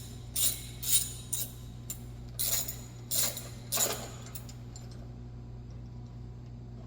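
Hand ratchet clicking in short bursts on its return strokes, about one stroke every half second, while a bumper bolt is worked in; the strokes stop about four seconds in. A steady low hum runs underneath.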